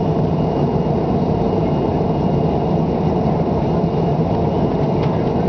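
Airliner cabin noise in flight: the steady roar of the jet engines and rushing air, heaviest in the low range, with a faint thin high whine over it.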